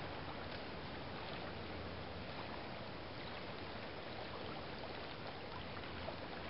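Steady rush of a shallow river's current running over a riffle.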